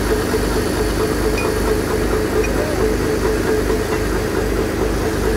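An engine running steadily at an even pitch, with a low throb.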